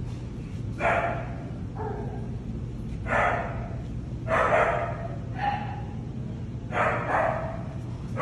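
A dog barking, about seven short barks at uneven intervals, over a steady low hum.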